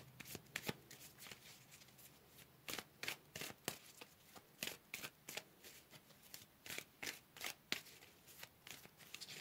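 A tarot deck being shuffled by hand: a soft, irregular run of quick card flicks and taps, several a second.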